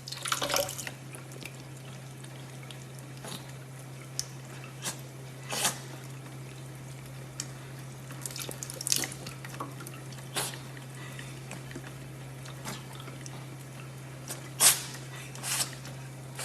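Water dripping: irregular sharp drops and taps, a few seconds apart, over a steady low hum.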